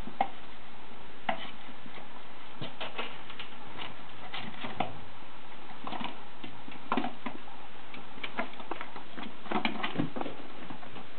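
Ferrets scampering on wooden stairs: irregular clicks and taps of claws on the treads, mixed with soft knocks as a plush toy is dragged and bumped on the steps, over a steady background hiss.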